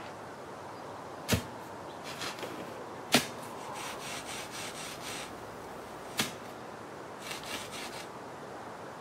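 A wooden stick jabbed into hard, dry, cracked soil: three sharp strikes a few seconds apart, with bouts of quick scratching and scraping as the earth is loosened to dig a hole for planting a seedling.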